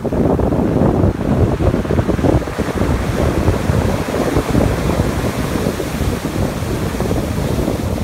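Ocean surf breaking and washing up over a sand-and-pebble beach, a continuous rush of foaming water, with a wave breaking about a third of the way in and its wash hissing up the shore. Wind buffets the microphone with a low rumble underneath.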